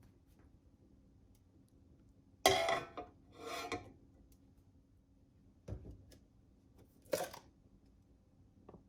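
A utensil scraping and clinking against a dish in a few short strokes, the loudest about two and a half seconds in, with quiet between them.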